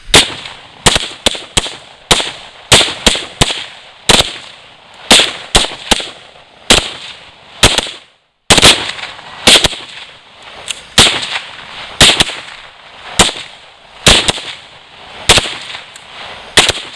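Several rifles firing single shots in quick, irregular succession, a few shots a second, overlapping from more than one shooter. There is a short break a little past halfway.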